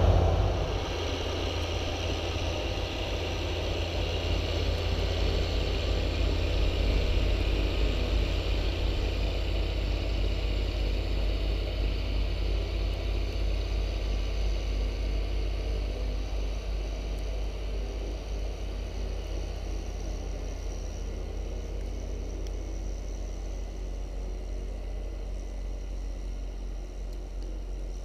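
John Deere X748 garden tractor's three-cylinder diesel engine running steadily with its 54-inch front snowblower throwing snow. The drone fades gradually as the tractor moves away.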